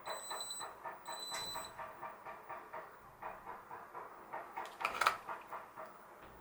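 Watch pager giving two short high-pitched beeps near the start as it receives a call from its paired call button, over a fast, even pulsing; a sharp clatter about five seconds in.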